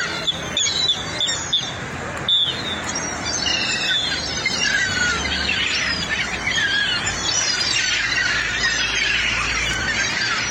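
Many birds calling at once, a dense chorus of overlapping chirps and squawks, with a few sharp clicks in the first couple of seconds.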